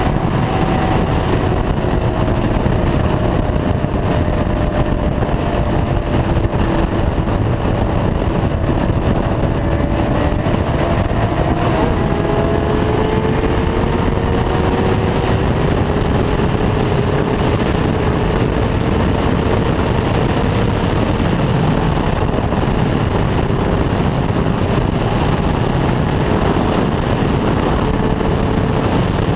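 Sport motorcycle ridden at steady highway speed: loud wind and road noise over the engine's steady tone, whose pitch drifts slowly and shifts about twelve seconds in.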